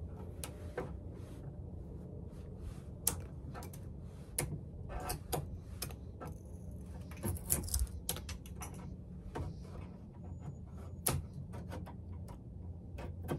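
Irregular clicks, ticks and short scrapes as a small hand tool pries and picks old wood veneer off a nightstand top; the veneer has been re-glued and is coming away in small bits.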